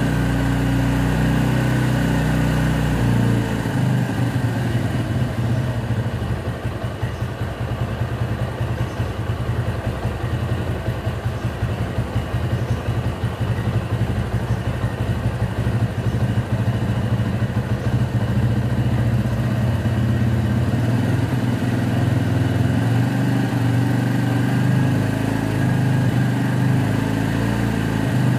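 Motorcycle engine running at a raised idle while its fuel mixture is adjusted: it runs steadily, turns uneven about three seconds in, and settles back to a steady run about twenty seconds in.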